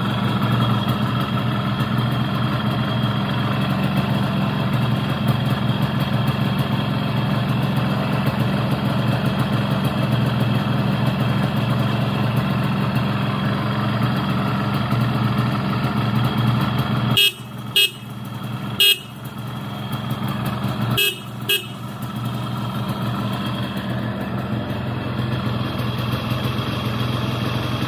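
Yamaha RX-King motorcycle's two-stroke single idling steadily, then its newly fitted horn sounding in short beeps: two single beeps about a second and a half apart after some seventeen seconds, then a quick double beep a few seconds later.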